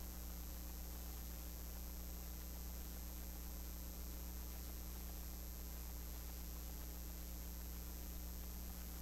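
Steady electrical mains hum with a constant hiss underneath, unchanging throughout; no other sound stands out.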